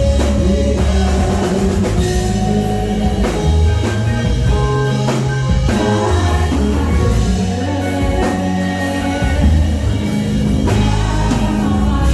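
Live worship band playing a song, a drum kit keeping a steady beat over deep bass notes and held chords, with some singing.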